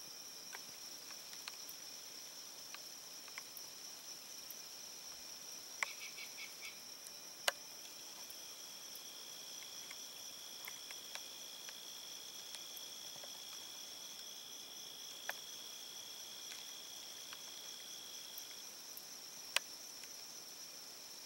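Steady high-pitched insect chorus, with a second, lower insect trill joining for about ten seconds in the middle. A few sharp clicks stand out over it as the loudest sounds.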